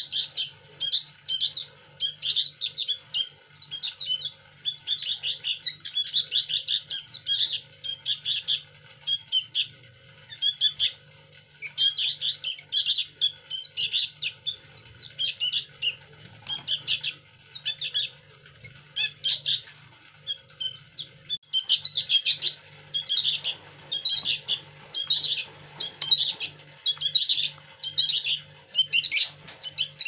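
Two fledgling sooty-headed bulbuls (kutilang) giving begging calls while being hand-fed: rapid runs of short, high, shrill chirps, several a second. The calls thin out for a few seconds past the middle, then pick up again.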